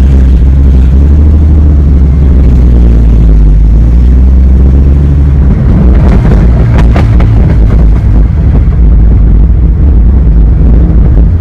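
2004 Ford Mustang's engine and exhaust droning steadily under way. About five and a half seconds in the steady drone breaks up, and from about six to eight seconds in the exhaust crackles and pops in a quick cluster of sharp cracks.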